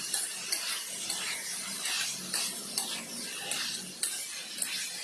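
Pork pieces sizzling in a non-stick wok as they are stirred with a spatula, with several sharp clicks and scrapes of the spatula against the pan.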